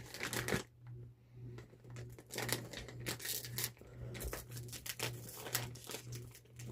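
A chip bag crinkling and rustling in irregular bursts as a small dog gets into it, over a steady low hum.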